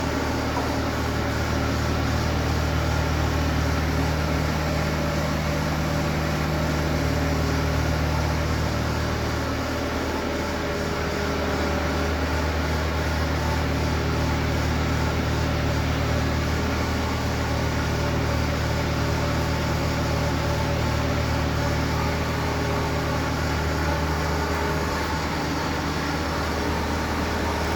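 Skid steer loader's engine running at a steady speed, a continuous low drone whose tone shifts slightly about ten seconds in and again near the end.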